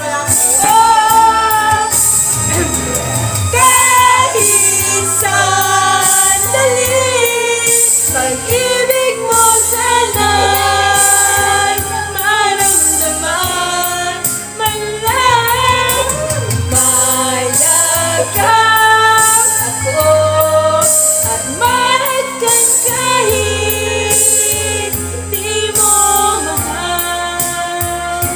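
A woman singing karaoke-style into a condenser microphone over a backing track with a steady beat, the melody full of held and gliding notes, mixed through a V8 sound card.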